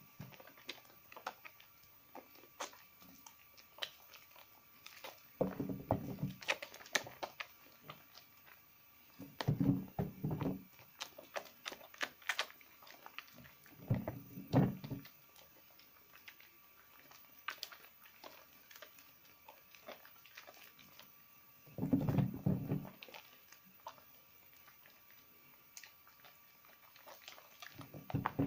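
Hands squeezing and kneading soaked recycled soap in cold soapy water: wet squelching in four bursts a few seconds apart, with small clicks and crackles of lather in between.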